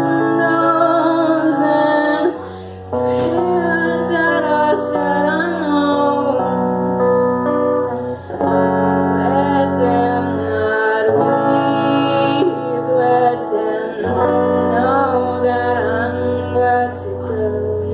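A woman singing live while strumming an electric guitar, held chords changing every couple of seconds under her wavering sung melody.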